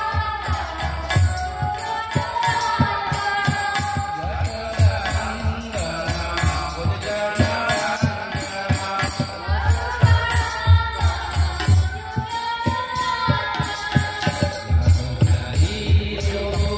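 Devotional kirtan: a woman's voice singing a chant through a microphone, over kartal hand cymbals clashing in a steady rhythm. A khol drum beats in stretches underneath.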